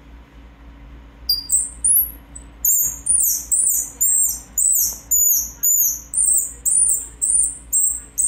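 Homemade mouth-blown squirrel call giving a rapid series of shrill, very high squeaks that fall in pitch, about two a second. The squeaks start about a second in and imitate a squirrel's call.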